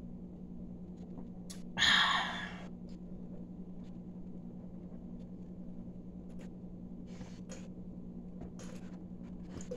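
A person gulping water from a plastic cup: faint swallows and small mouth clicks over a steady low hum, with one brief loud rush of breath about two seconds in.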